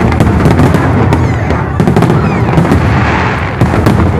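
Fireworks display: shells bursting in quick succession, sharp bangs over a continuous rolling rumble.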